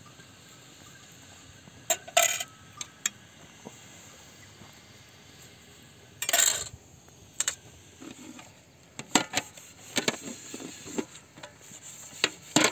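Metal pots, lids and plates clinking and knocking against each other as they are washed by hand, with a couple of louder short scrapes and the knocks coming thicker near the end.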